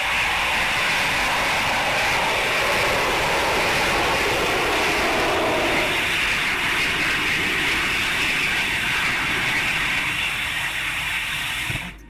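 Rocket engine of the Scorpius vertical-takeoff, vertical-landing vehicle running steadily as a loud rushing noise while the vehicle hovers down to the pad. The noise cuts off suddenly near the end.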